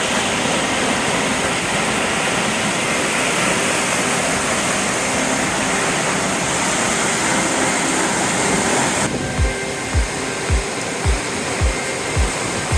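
Steady roar of a tall waterfall pouring down. About nine seconds in, the roar drops back and background music with a kick-drum beat about twice a second comes in.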